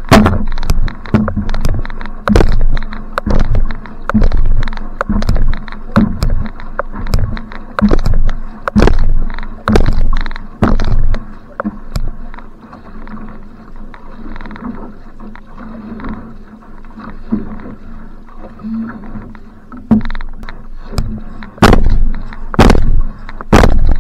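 Outrigger canoe (va'a) paddle strokes heard close up from the bow: the blade plants and pulls through the water about once a second, each stroke a loud splash and knock. About halfway the strokes fade to light, quiet paddling with water rushing past the hull, and loud hard strokes start again near the end.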